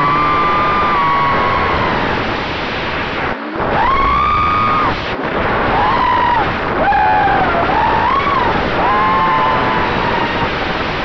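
FPV racing quadcopter's Emax RS2205 2300kv brushless motors whining, the pitch rising and falling with throttle as the quad dives and rolls, over a steady rush of wind and frame noise on the onboard camera's microphone. The whine drops away briefly about three seconds in, then returns with a quick rise.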